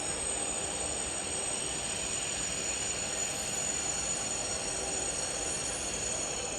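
A train moving slowly through the station: a steady rumble with several high-pitched tones held steady above it.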